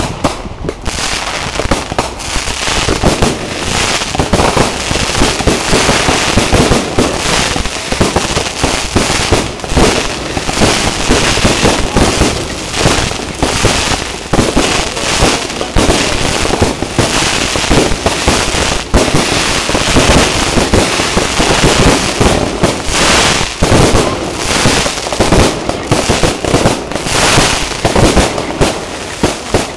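Fireworks display: aerial shells firing and bursting one after another in quick succession, a dense run of bangs with no real pause.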